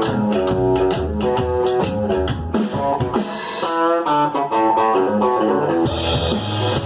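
Country-rock band playing an instrumental break between verses: an electric guitar lead over acoustic guitar, bass guitar and drum kit. The drums drop out for about three seconds in the middle, leaving bending guitar lines, and come back near the end.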